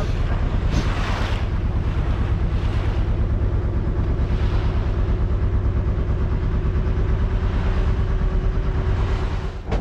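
Fishing boat's engine running steadily under way, with wind on the microphone and water splashing along the hull. The engine is throttled back right at the end as the boat slows at the fishing spot.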